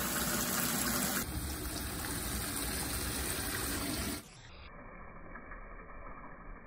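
Water pouring steadily into a tarp-lined pickup truck bed as it fills. About four seconds in it cuts to a much quieter, dull hiss.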